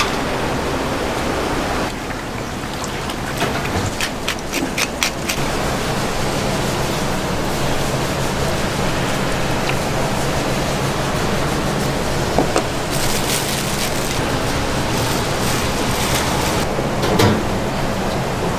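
Steady rushing noise of a working restaurant kitchen with a low hum under it, broken by a quick run of light clicks a few seconds in and a few single knocks later, the loudest near the end, from raw meat being handled in a steel bowl and cut on a plastic board.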